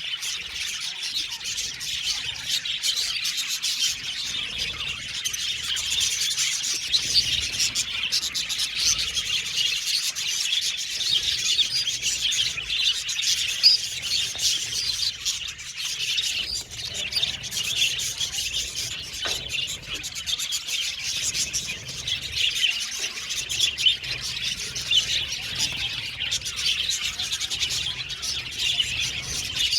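A flock of budgerigars (budgies) chattering and chirping nonstop, many birds calling over one another at once.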